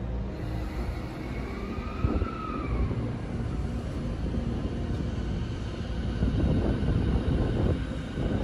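E217 series electric commuter train pulling out of the station: a steady low rumble of its motors and wheels, with a whine that rises and then falls in pitch about a second in as it starts to move. The rumble grows a little louder in the last few seconds as the train gathers speed.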